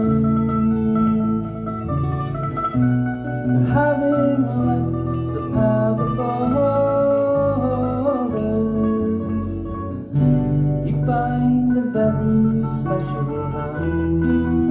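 Live folk band playing a tune on two strummed acoustic guitars, a mandolin and a bass guitar, amplified through a PA.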